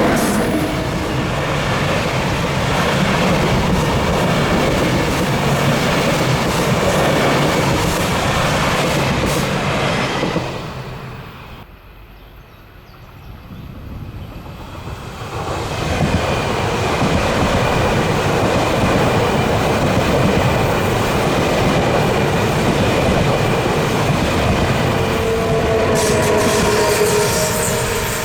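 Train running past on the track, with wheels clattering over the rail joints. The noise drops away for a few seconds about halfway through, then comes back, and a wheel squeal sets in near the end.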